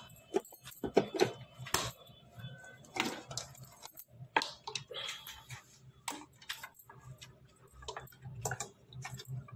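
Irregular light clicks and knocks, like things being handled and set down, over a faint steady low hum.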